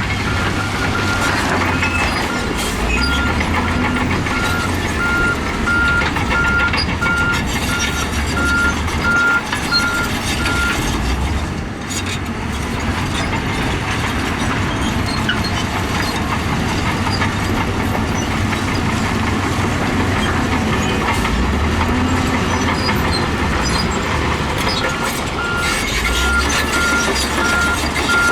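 Heavy diesel earthmoving machinery running steadily, its engine note rising and falling with load. A reversing alarm beeps repeatedly for the first ten seconds or so, stops, and starts again near the end.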